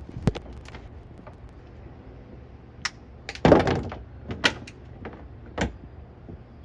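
Work-handling noise: a sharp knock, then a brief scraping rush about three and a half seconds in and a few lighter knocks and clicks, as heavy cables are worked and slid through a rigging tube.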